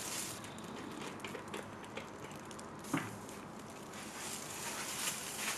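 Faint handling sounds of acrylic paint cups and bottles being readied for a pour: scattered light clicks and a soft knock about three seconds in, over a low hiss.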